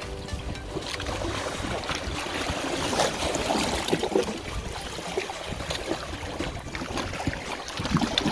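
Baltic Sea water lapping and splashing in small, uneven ripples at the shore.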